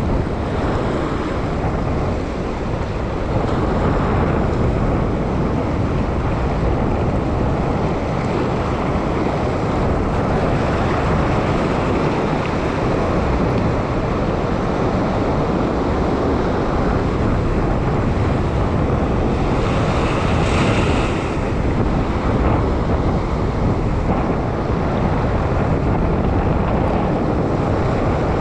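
Sea surge washing and foaming over a rock ledge, with wind buffeting the microphone. About two-thirds of the way through a louder, hissier wash stands out briefly.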